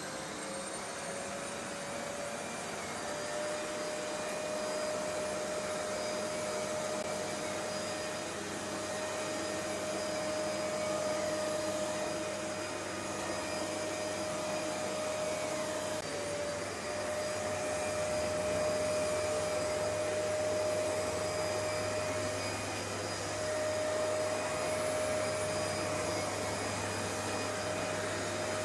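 Paper-bag vacuum cleaner running steadily, its motor whine rising slightly to a settled pitch over the first few seconds.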